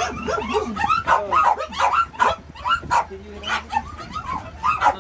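Several crated dogs barking and yipping in quick, overlapping calls, with a steady low hum underneath.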